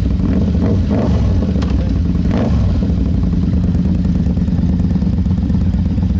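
A large motorcycle engine running steadily at idle, loud, with a few short clatters in the first half.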